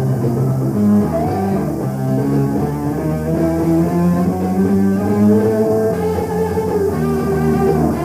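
Live hard rock band playing, with guitar and long held notes over a full, steady sound.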